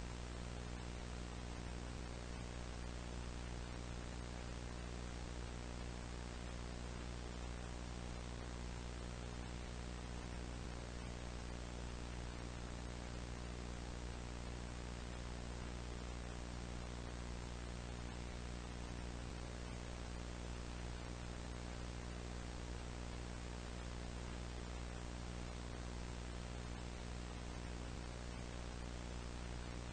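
Steady electrical hum with many overtones over a bed of static hiss, unchanging throughout.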